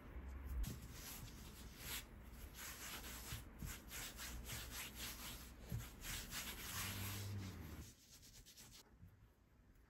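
Hands rolling and pressing a log of soft bread dough on a floured silicone mat: a soft, continuous rubbing and brushing of skin over dough and mat. It stops about a second before the end.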